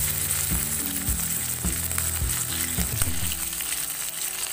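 Mustard seeds, urad dal and curry leaves sizzling in hot oil in a steel kadai: a South Indian tempering.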